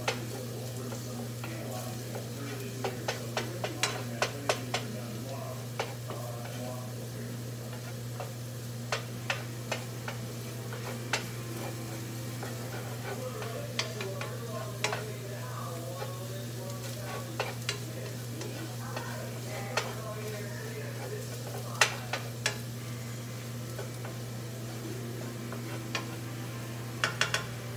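Chopped garlic sizzling in oil in a frying pan as it is fried brown, stirred with a utensil that scrapes and taps against the pan in scattered clusters of sharp clicks, over a steady low hum.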